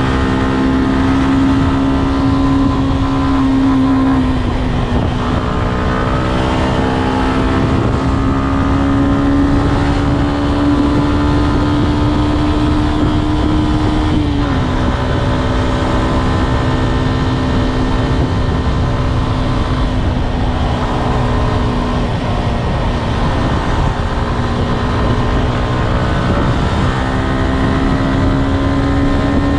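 Yamaha Y15ZR's 150 cc single-cylinder four-stroke engine on its standard exhaust, running at highway speed over a steady low rush of wind. The engine note climbs slowly and drops back a few times, most sharply about fourteen seconds in, then climbs again near the end.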